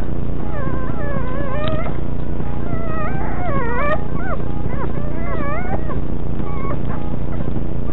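Nine-day-old puppies whimpering and squealing while nursing: high wavering cries that rise and fall, several overlapping, thickest in the first half and again about five seconds in. A loud steady low hum runs underneath.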